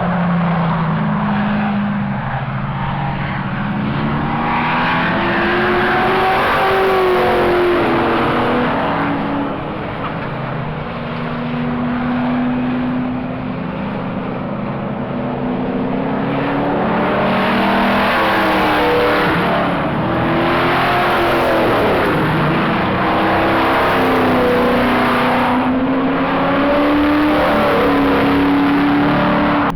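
Hot rod engines running and revving as cars drive past, their pitch rising and falling with the throttle and with a car passing about two-thirds of the way in.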